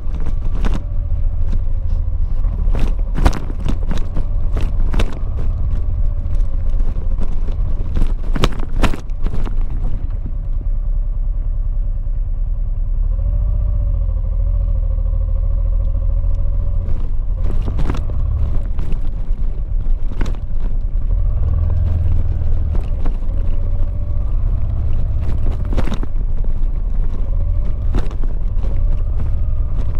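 Honda XL700V Transalp's V-twin engine running under way on a gravel track, its note rising and falling gently over a heavy low rumble. Frequent sharp knocks and clatters from stones and the rough surface come thickly in the first ten seconds and now and then after.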